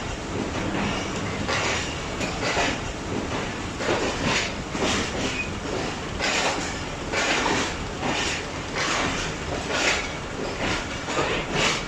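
Train passing slowly alongside the platform, its wheels clacking repeatedly over the rail joints, under a steady hiss of heavy rain.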